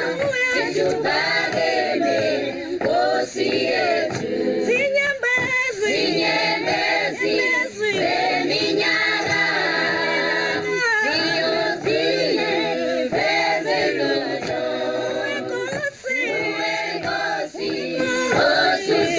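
A choir singing a cappella, several voices together in sustained, flowing phrases.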